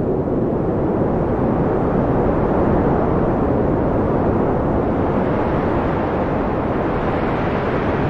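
Blizzard wind blowing strongly in a steady, low rush.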